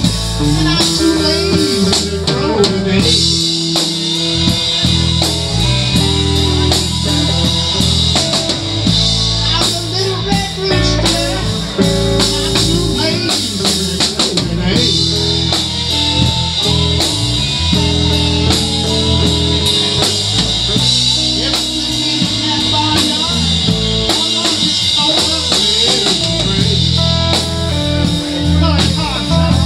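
Live amplified blues band playing: electric guitars over a drum kit and a steady low bass line.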